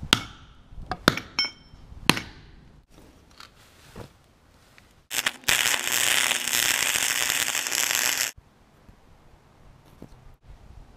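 Hammer blows on short pieces of steel pipe: several sharp metallic strikes, some ringing, in the first two seconds, then a few lighter knocks. About five seconds in, an angle grinder cuts steel for about three seconds and then stops abruptly.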